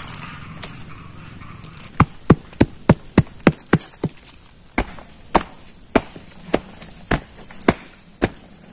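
Repeated chopping blows of a blade into wood. A quick run of sharp strikes, about three a second, begins about two seconds in, then slows to steadier strikes about every half second.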